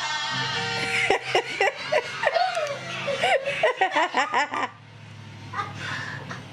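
Laughter in a quick run of short, bouncing bursts lasting about four seconds, then dropping away.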